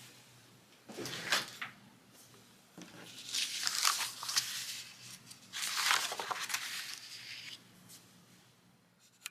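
Paper rustling and crinkling in three bursts, about a second in, around the middle, and past the middle, as planner pages and sticker sheets are handled.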